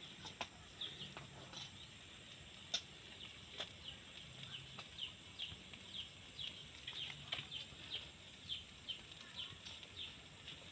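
A small bird, or a chick, cheeping over and over: short, faint chirps that fall in pitch, about two a second, with a few sharp clicks scattered among them.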